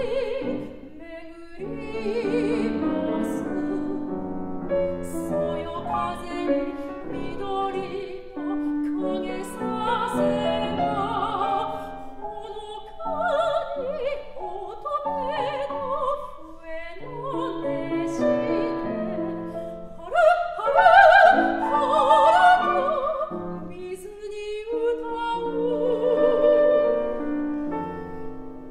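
A soprano singing a Japanese art song in full operatic voice with vibrato, accompanied by a grand piano. She sings loudest about two-thirds of the way through.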